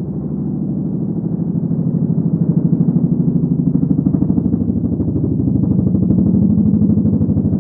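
Low, buzzy synthesizer tone with a fast, even flutter, growing louder about two seconds in.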